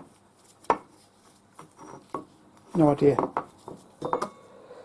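A few sharp metal clinks and taps as small steel parts are handled on a workbench, with some brief muttered speech in the middle.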